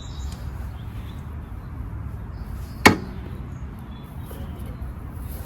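A single sharp knock about three seconds in, over a low steady rumble.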